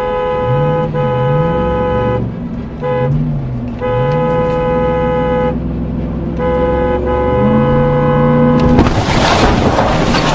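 Truck horn blaring in four long blasts with short gaps, then a sudden loud crash of impact noise near the end: a container truck colliding with a car cutting into its lane.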